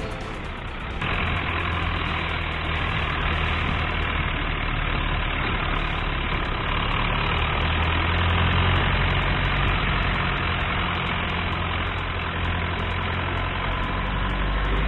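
Motor vehicle running steadily: a low engine hum under a constant wash of road noise.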